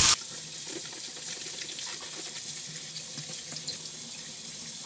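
Kitchen tap running into a sink as food is rinsed under it: a steady, even hiss of water with a few faint light clicks.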